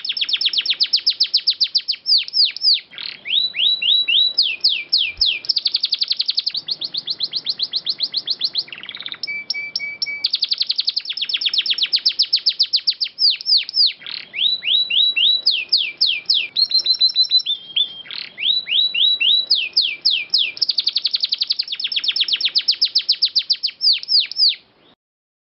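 Domestic canary singing fast trills of rapidly repeated falling notes, in phrases broken by brief pauses, with a short steady whistled note about ten seconds in. The song cuts off abruptly just before the end.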